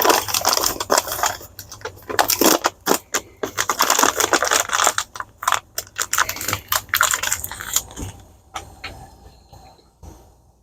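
Coffee-making gear being handled: many quick clinks, scrapes and rustles, busiest for the first eight seconds and then thinning out near the end.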